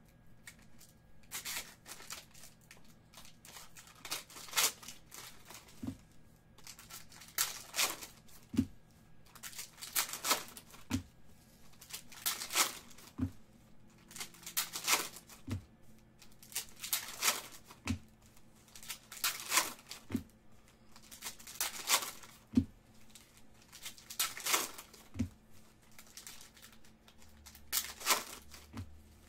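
Plastic wrappers of Panini Prizm retail trading-card packs being torn open and crinkled by hand, one pack after another, about every two seconds. Many of the tears come with a short low knock.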